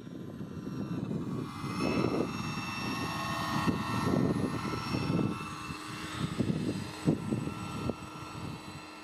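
Electric RC scale helicopter (Vario Jet Ranger) in flight: steady high whine of its electric motor and rotor, over an uneven low buffeting rumble that swells and falls.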